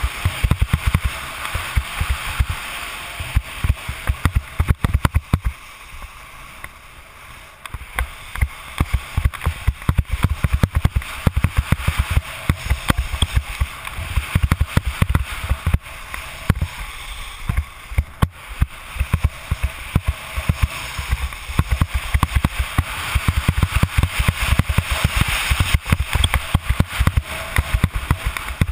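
Wind buffeting the microphone of a head-mounted camera on a fast ski run, with skis hissing and scraping over groomed snow. It eases briefly about six seconds in.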